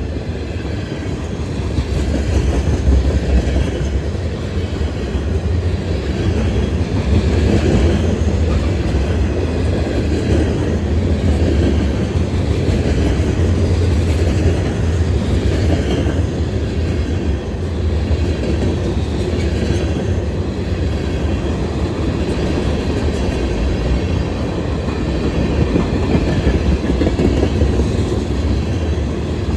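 Freight train cars rolling past close by: a steady rumble of steel wheels on rail.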